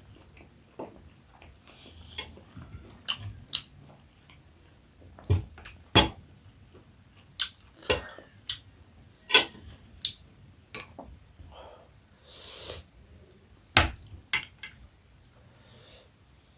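Close-miked eating of buff momo: chewing and mouth smacks, broken by sharp clicks of utensils on the plate. There is a short hiss about three-quarters of the way through.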